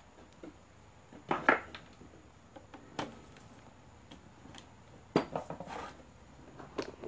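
A few scattered light metallic clicks and clatters as battery-charger clip leads and wires are handled at a small motorcycle battery's terminals, the busiest stretch a little after five seconds in.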